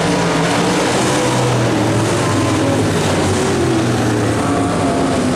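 Several dirt modified race car engines running together, their pitches rising and falling as the cars circle the track.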